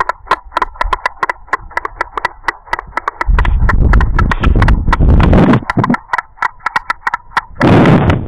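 White storks clattering their bills: a rapid, even run of hollow wooden clicks, the pair's greeting display. Loud stretches of low rumbling noise come and go over the clicking from about three seconds in.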